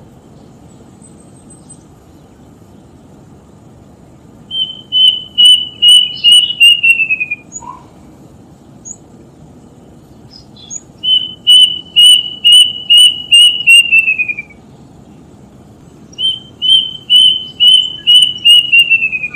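A bird known in Indonesia as the 'tutit tutit' singing three phrases of clear whistled notes, each a quick run of about eight to ten notes on one pitch that falls away at the end. In folk belief, this call is an omen that someone has died.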